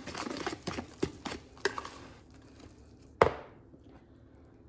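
Kitchen items handled on a counter: a run of light knocks and rustling, then one sharp knock about three seconds in, as things are set down while ingredients are gathered for a cake batter.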